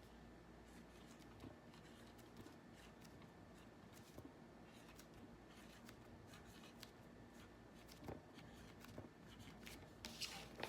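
Near silence with faint scratching and light taps of a marker writing on a small whiteboard, a little busier near the end.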